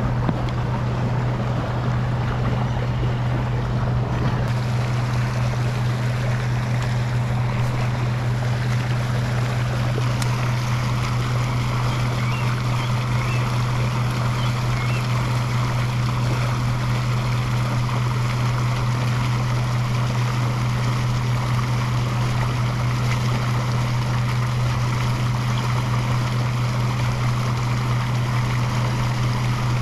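Warm-water discharge outfall pouring into the river: a steady rush of churning water over a constant low hum.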